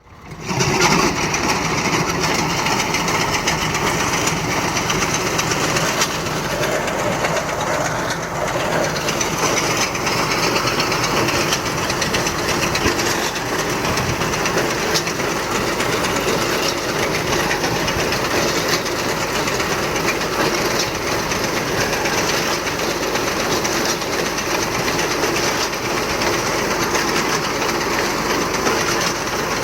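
Reaper binder running with a steady mechanical clatter.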